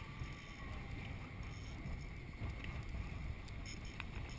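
Steady wind buffeting the microphone of an action camera on an open boat at sea, a low rumble with a few faint clicks.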